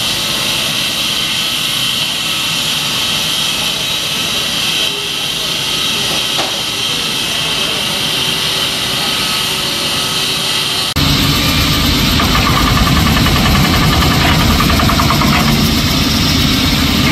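A diamond-tipped saw cutting through the bridge's steel and concrete, a steady high-pitched hiss-like whine. About eleven seconds in this changes abruptly to the louder, deeper running of heavy diesel plant, an excavator and crane.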